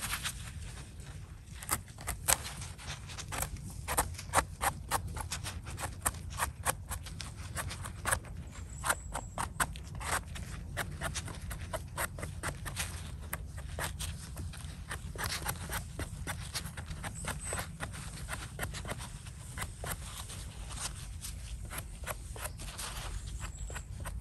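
A small knife scraping and trimming soil off the stem base of a freshly picked bolete mushroom: a run of quick, irregular scraping clicks over a steady low rumble.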